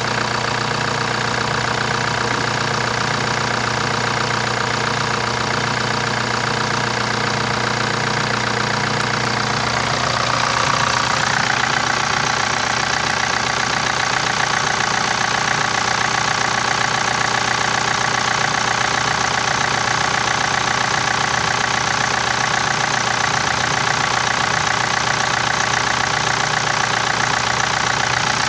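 Kia Sorento's 2.2-litre CRDi four-cylinder common-rail turbodiesel idling steadily, heard from the open engine bay. It gets a little louder and brighter about ten seconds in.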